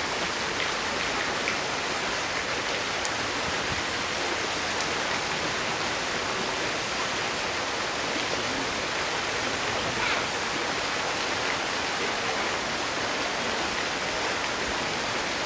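Steady rush of running water, an even hiss that holds at one level throughout.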